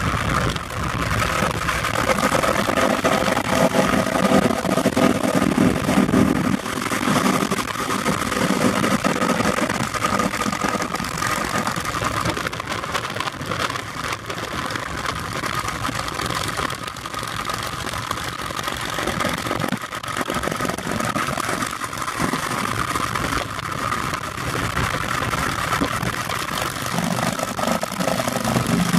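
Steady road and wind rush of a car at highway speed, with the engine note of touring motorcycles riding alongside. The motorcycle sound is stronger in the first few seconds and again near the end.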